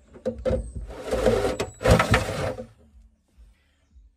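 Power drill running a 38 mm carbide hole saw into the car's boot floor in two short bursts of under a second each, after a few sharp clicks.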